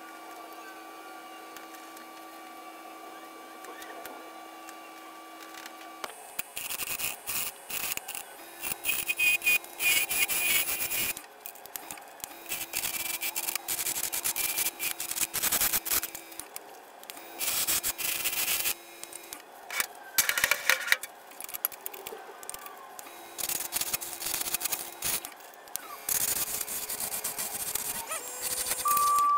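Faint steady shop hum, then about six seconds in a bowl gouge starts cutting a spinning segmented wood bowl blank on a wood lathe: irregular rough scraping bursts as the tool bites and lifts, over the lathe's steady motor whine, which rises in pitch near the end.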